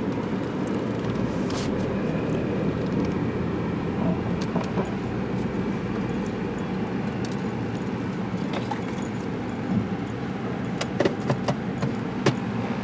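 Steady low rumble of a running car heard from inside the cabin, with a few light clicks and rustles, most of them near the end.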